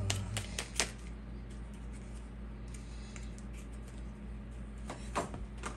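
A steady low electrical hum in a small room, with a few light clicks and taps near the start and again near the end.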